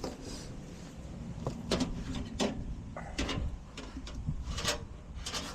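A series of irregular light knocks and clicks, about eight in all, from tools and parts being handled.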